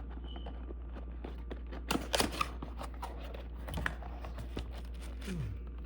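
Soft clicks and rustles of a product box being opened and its packaging handled, in a short cluster about two seconds in and a few more later, over a steady low hum.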